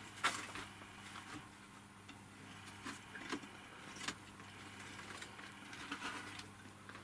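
Several short clicks and light knocks, the loudest about a quarter second in, over a steady low hum.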